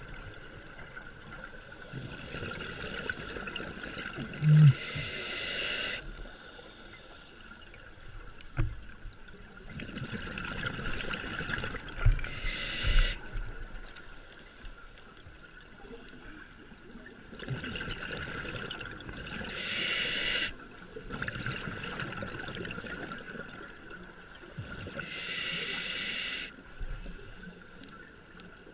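Scuba diver breathing through a regulator underwater: about four breath cycles, each a rushing exhaled-bubble noise ending in a short bright hiss, one every six to eight seconds. A short low thump about four seconds in.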